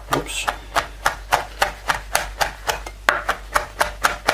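Santoku knife finely chopping dried chili on a plastic cutting board: a steady, even tapping of the blade on the board, about four strokes a second.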